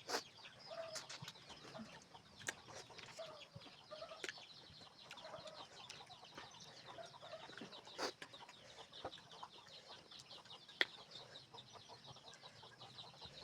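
Faint clucking of chickens, with short soft calls every second or so over a steady high hiss, broken by a few sharp clicks, the loudest about eight and eleven seconds in.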